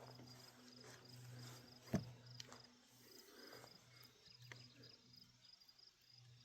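Faint insect chirping in a steady run of quick high pulses, over a low steady hum, with one sharp click about two seconds in.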